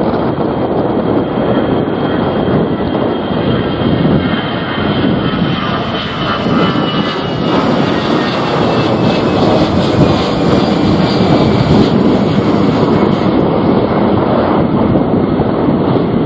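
A jet airliner passing close by, its engine whine gliding down in pitch as it goes past. Heavy gale wind buffets the microphone throughout.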